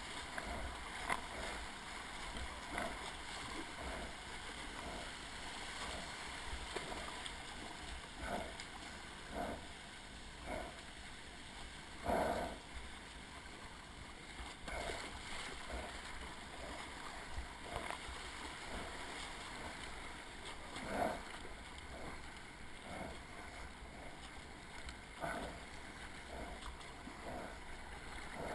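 Whitewater kayak paddling down a river rapid: steady rush of moving water with a short splash from each paddle stroke about once a second, and two louder splashes, one near the middle and one about two-thirds of the way through.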